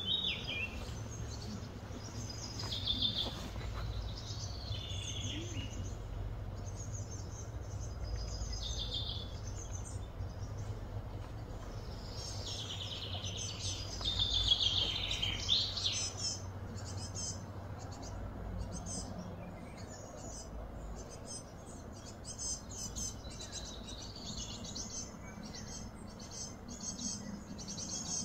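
Songbirds chirping and singing over a steady low hum, with a louder burst of song with falling notes around 13 to 16 seconds in.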